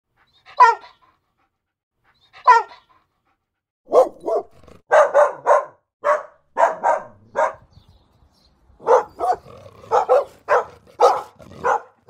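Dog barking: two short high yips a couple of seconds apart, then a run of about sixteen barks coming in quick clusters of two or three.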